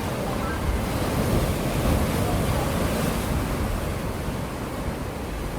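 Sea waves breaking and washing on the shore, a steady rushing surf that swells a little and eases off, with some wind on the microphone.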